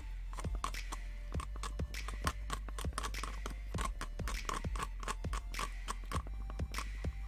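Background music with a steady beat, over a wooden skewer scraping and clicking against the inside of a small plastic cup as glue is stirred.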